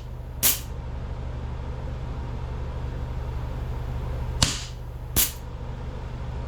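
Replica Springfield 1911 CO2 air pistol firing at a pumpkin: a sharp pop about half a second in, then a sharp crack and another pop about three quarters of a second apart near the end, over a steady low hum.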